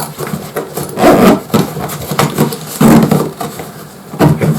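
Tools and a fabric tool bag being handled, with irregular bursts of rubbing and scraping; the loudest come about a second in and near three seconds.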